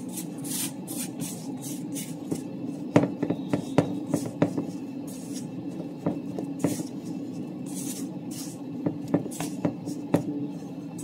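Red silicone spatula stirring thick banana bread batter in a stainless steel bowl: soft scraping with irregular knocks against the bowl, over a steady low hum.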